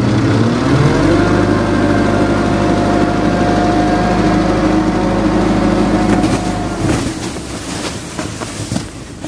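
Dump truck's engine revs up and holds a steady raised speed to drive the hydraulic hoist that tips the loaded bed, then drops back about seven seconds in. Knocks and thuds follow near the end as sacks of manure slide off the tipped bed.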